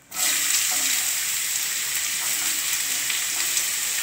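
Chopped onions hitting hot oil and ghee in a kadai and frying with a steady sizzle that begins suddenly as they go in.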